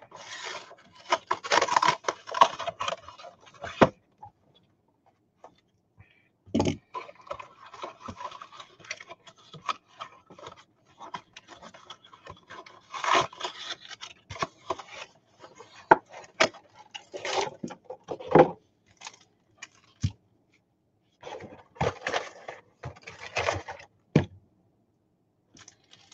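Hands opening a cardboard hanger box of baseball cards and sliding the card stack out: irregular scraping and rustling with small clicks, in short bursts with brief pauses between.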